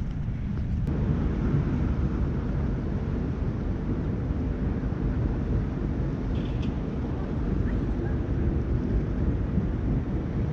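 Wind buffeting the microphone: a steady low rumble with no clear tone, a little stronger from about a second in.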